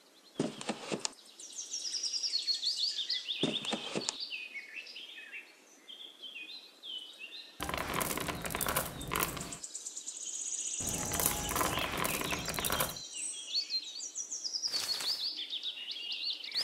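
Small birds chirping and twittering in quick runs of short notes, broken by five bursts of rough noise, the longest lasting about two seconds.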